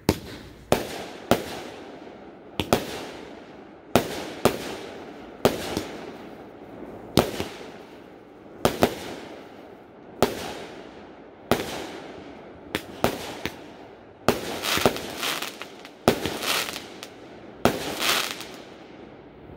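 Aerial fireworks bursting one after another: sharp bangs about once a second, each followed by an echoing tail. Near the end they come in quicker clusters of rapid pops.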